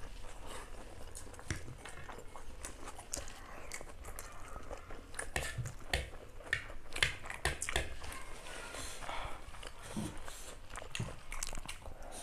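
Two people eating chow mein noodles up close: slurping, chewing and lip smacks as a string of irregular short wet clicks, busier in the second half.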